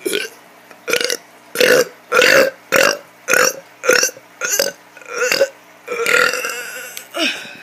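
A child burping over and over in a quick run of short, loud burps, about two a second, with one long drawn-out burp about six seconds in followed by one more short one.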